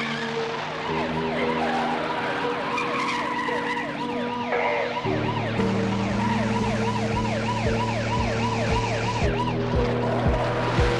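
Police sirens yelping in a fast, repeating up-and-down wail over a film score of sustained tones, joined about halfway by a steady low beat.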